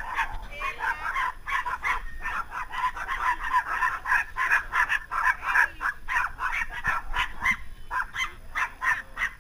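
Dogs barking and yelping rapidly, several short high-pitched barks a second without a break.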